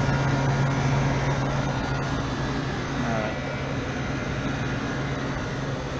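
Refrigeration condensing unit running: a steady low hum from the compressor under the airy rush of the condenser fans.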